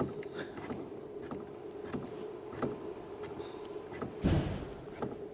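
Scattered light knocks and one heavier thump about four seconds in, over a steady hum: the loose front left plastic wheel arch liner being handled. It is the likely cause of a plastic-sounding knock from the suspension area over small bumps.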